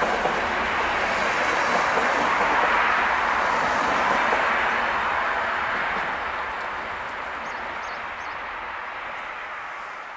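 Passenger train coaches rolling past on the rails with a steady rush, which fades away as the train recedes over the last few seconds. A few faint high chirps come near the end.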